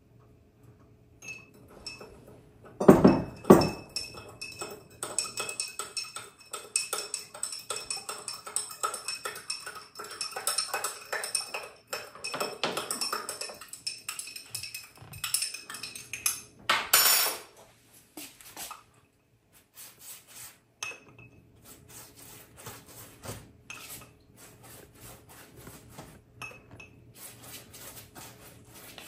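Metal spoon clinking and scraping against a glass and a bowl while mixing, rapid and busy for several seconds, with a couple of louder knocks about three seconds in and another in the middle, then only scattered light clinks.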